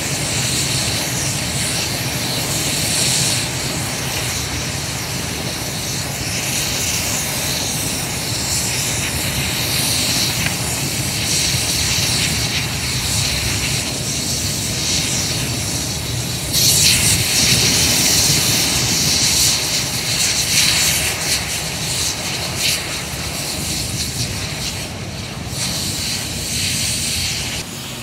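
A large truck fire burning with a steady rushing noise, over the low rumble of fire engines running nearby. The rushing grows louder for a few seconds about two-thirds of the way through.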